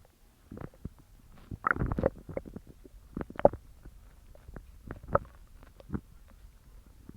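Human stomach growling: an irregular run of gurgles and short pops. A longer, louder gurgle comes about two seconds in, followed by scattered sharp pops.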